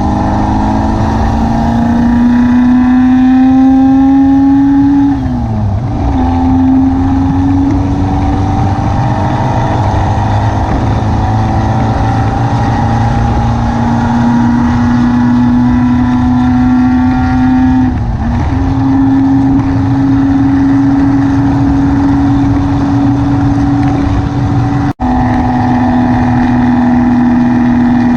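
Car engine and road rumble while driving. The engine note climbs steadily, then drops sharply about five seconds in, as with a gear change, and dips briefly again later on. The sound cuts out for an instant near the end.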